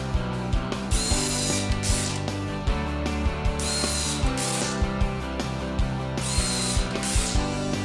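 Cordless drill driving into a wall stud through drywall, run in several short spurts, with clicking throughout. Background music plays under it.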